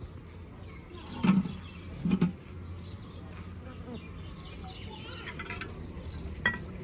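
Outdoor background with faint high chirps, broken by two short low thumps about a second apart and a sharp click near the end.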